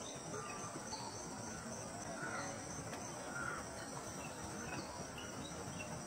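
Steady chorus of insects, with a few faint short chirps scattered through it.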